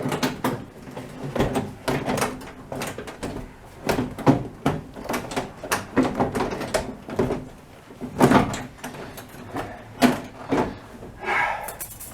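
Vinyl door panel being fitted onto a car door: a run of irregular knocks, clicks and rubbing as it is pushed into place and seated, with a louder knock about four seconds in and another about eight seconds in.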